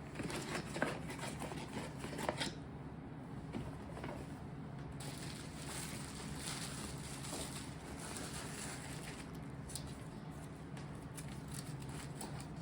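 Packaging being handled and unwrapped: a few light clicks and taps at first, then steady rustling and crinkling from about five seconds in.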